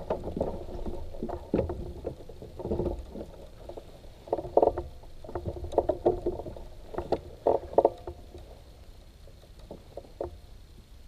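Irregular knocks and clatter on a plastic fishing kayak's hull and deck as things are handled in the cockpit, in clusters that thin out toward the end, over a low rumble.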